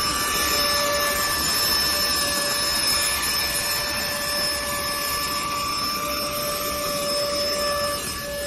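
Cordless handheld vacuum cleaner running steadily: a high motor whine over the rush of airflow, dipping slightly near the end.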